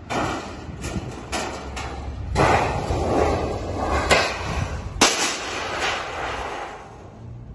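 A length of old rusted sheet-metal roof gutter is heaved off the roof, scraping and rattling, then crashes onto the pavement below with two sharp metallic bangs about four and five seconds in. The second bang is the louder.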